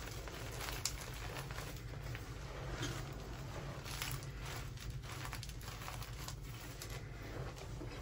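Hands squeezing and crumbling pieces of Grit Grip gym chalk, a continuous soft crunching made of many small irregular crackles and snaps, over a low steady hum.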